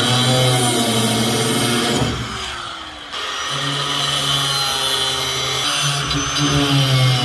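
Corded angle grinder with a thin cutoff disc cutting through the steel pedal linkage of an old truck cab: a steady motor whine with the hiss of the disc biting metal. Around two seconds in it eases off and winds down, then a second later it comes back hard and keeps cutting.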